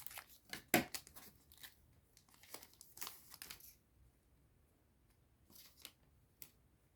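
Foil trading-card booster pack being torn open, crinkling, with a quick run of crackles over the first few seconds and then a few faint scattered ticks.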